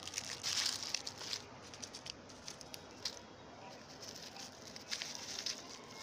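Plastic wrappers and dry leaves crinkling and rustling as a hand pulls litter out of leaf-strewn soil, with scattered small crackles; loudest in the first second and again about five seconds in.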